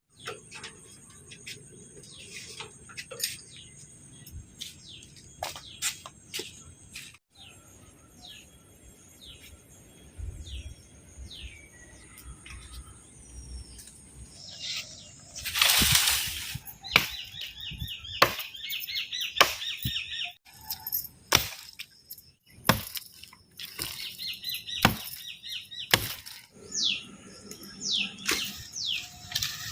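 Small birds chirping and calling, with short falling chirps and a fast trill of repeated notes about halfway through. Scattered sharp clicks and knocks are mixed in, and there is one louder noisy burst about halfway through.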